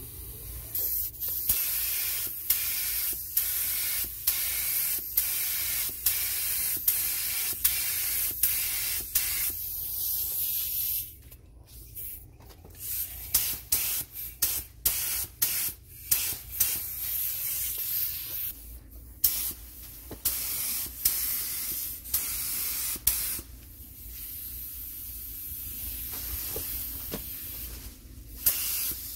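Primer being sprayed onto car body panels: a hissing spray that starts and stops over and over, with longer passes mixed with runs of short bursts.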